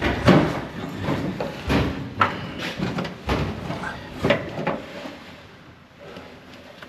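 Irregular knocks and clunks from hands-on work in and around the cab and engine bay of a 1956 Dodge Power Wagon, the loudest just after the start, with some low talk. The sounds die down near the end.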